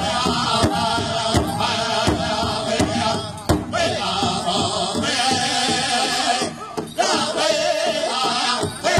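A powwow drum group sings a contest song for the men's Eastern War dance in chorus over a steady drum beat, about one and a half strokes a second, with a strong stroke about seven seconds in.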